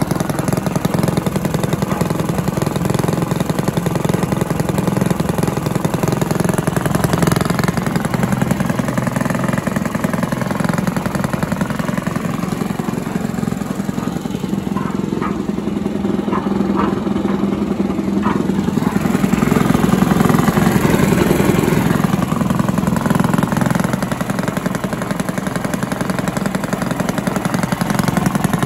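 Villiers 10 petrol engine on a Barford cement mixer running steadily, its pitch wavering slightly at times.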